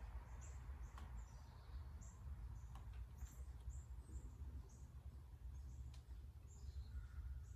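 Faint small birds chirping, short high chirps and a few falling calls scattered throughout, over a steady low hum, with a few faint clicks.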